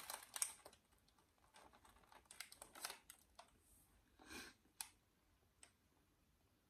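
Faint mouth sounds of chewing a bite of a soft-bread salmon tartare sandwich: scattered soft clicks and smacks, busiest in the first second and again a couple of seconds in.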